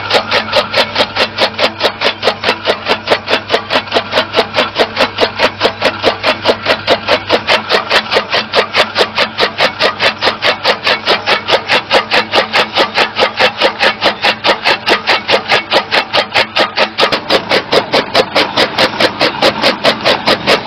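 Electric-motor-driven chaff cutter with a flywheel blade chopping green fodder, giving loud, even clacks about four times a second.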